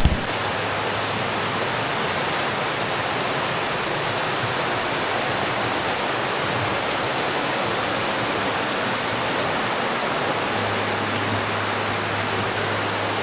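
Steady rush of a river flowing out of a cave mouth, running water with no breaks.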